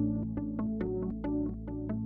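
Electronic closing theme music of a TV programme: quick plucked synthesizer-like notes, about five a second, over a steady bass note.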